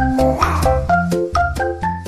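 Upbeat background music with a keyboard melody over bass notes and a steady beat, and a brief noisy swish about half a second in.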